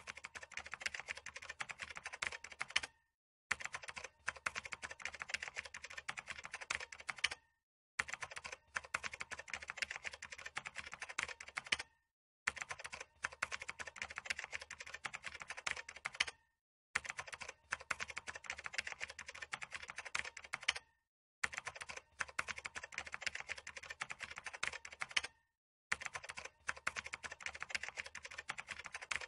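Rapid keyboard typing, a dense run of key clicks broken by a short pause about every four and a half seconds, in an even repeating pattern.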